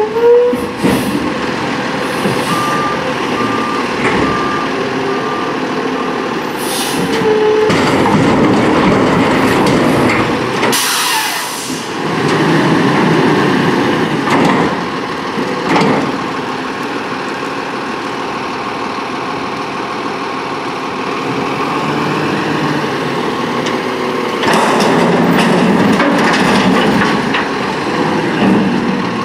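CCC LET2 front-loader garbage truck with an Amrep body raising a dumpster over the cab on its forks: the engine revs up in surges to drive the lift hydraulics. A reversing alarm beeps briefly near the start, and a short air-brake hiss comes about eleven seconds in.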